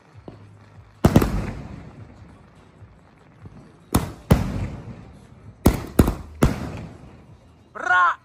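Firework going off: about seven sharp bangs at uneven intervals, the first about a second in and most of the rest bunched in the second half. A person's yell or laugh comes right at the end.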